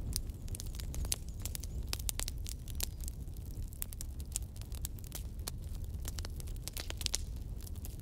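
Wood bonfire burning, the logs crackling and popping in frequent, irregular sharp snaps over a steady low rumble.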